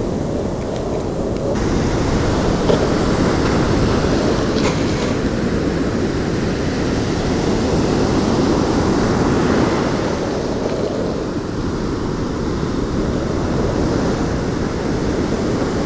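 Steady rushing noise of ocean surf and wind, strongest in the low rumble, with no separate distinct events.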